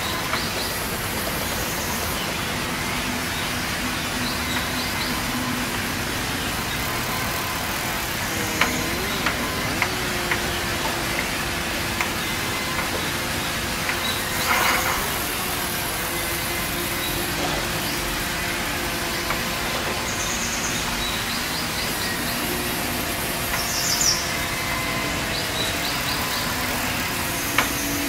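Large vertical band sawmill running steadily as a timber slab is fed along its table past the blade, with a few sharp knocks of wood being handled.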